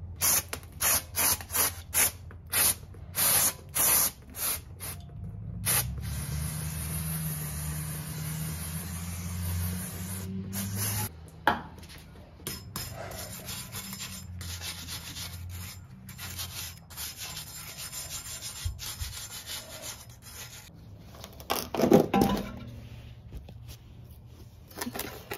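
Wire brush scrubbing rust in quick back-and-forth strokes, about two a second, then a steady hiss for about five seconds and more scattered scrubbing. A loud clunk near the end.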